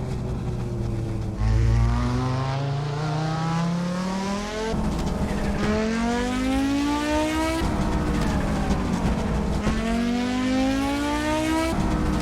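Audi Sport quattro S1's turbocharged five-cylinder engine pulling hard up through the gears. The engine note climbs steadily in pitch, then drops abruptly at each of several gear changes, with a stretch where the revs fall between pulls.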